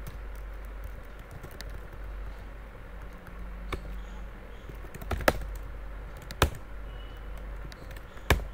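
Scattered key presses on a computer keyboard: a few separate sharp clicks rather than continuous typing, the loudest about five, six and a half and eight seconds in, over a low steady hum.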